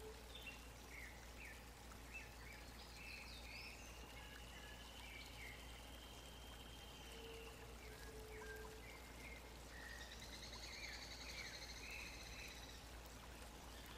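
Faint forest-pond ambience: several birds calling with short chirps and a few longer trills, with a few short low notes, over a steady background hiss.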